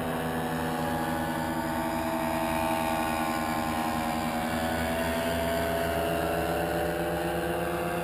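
Paramotor engine and propeller of a powered paraglider flying overhead, a steady droning engine note.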